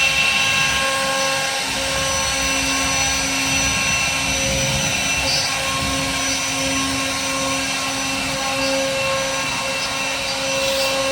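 CNC router spindle running steadily with a whine of several held tones over a rushing noise, its bit cutting wood.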